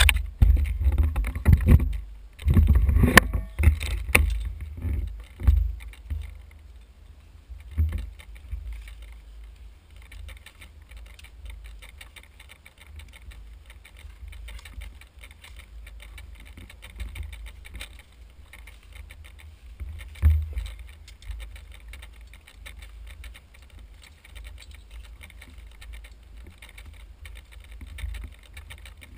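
Steady wind rumble on a head-mounted action-camera microphone while walking, with loud knocks and rattling from handling and gear in the first few seconds and an occasional bump later.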